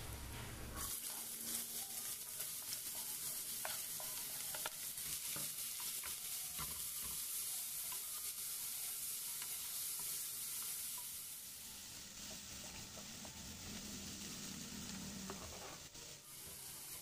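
Chopped onion and green pepper sizzling in olive oil in a nonstick frying pan over high heat, stirred with a spatula that scrapes and ticks lightly against the pan.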